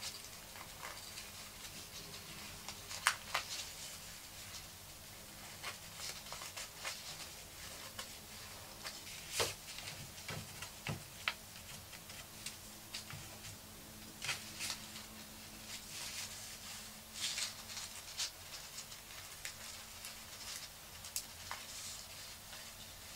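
Paper strips rustling and crinkling as they are woven over and under through slits in a paper egg, with scattered light clicks. Two sharper clicks stand out, about three seconds in and near the tenth second.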